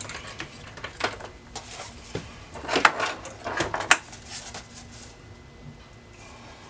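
Hands handling a car stereo head unit and its plastic wiring-harness plugs: irregular plastic clicks and knocks, the loudest cluster about three to four seconds in.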